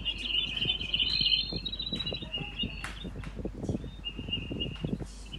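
Eurasian jay fledgling calling: a high, buzzy, rapid chatter in two stretches with a pause about halfway through. Soft knocks and scuffs sound underneath.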